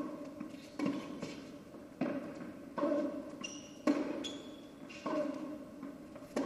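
Tennis rally on an indoor hard court: the ball is struck by racket and bounces on the court about once a second, each hit ringing on in the large hall. Short high squeaks of shoes on the court come between some of the shots.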